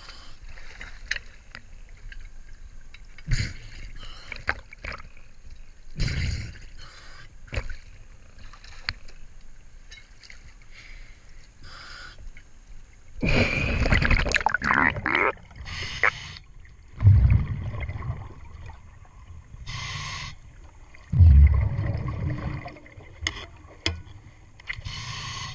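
Water splashing, sloshing and gurgling against a camera as it moves between underwater and the surface. There is a long loud burst of splashing about halfway through, and short bubbling bursts every few seconds.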